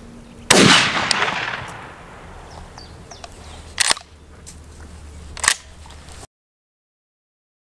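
A single shot from a Kral Arms 12-gauge pump-action shotgun, its report echoing away over about a second and a half. Then two sharp clacks about a second and a half apart as the pump action is worked, before the sound cuts off to dead silence.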